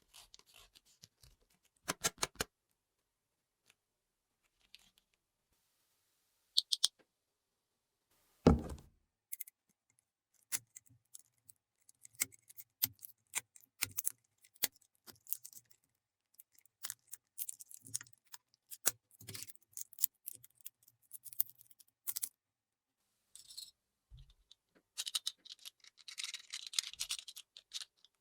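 Small toy pieces from a miniature kitchen and picnic play set being handled and set down, giving scattered light clicks and taps. There is a heavier knock about eight seconds in, and a stretch of rustling near the end.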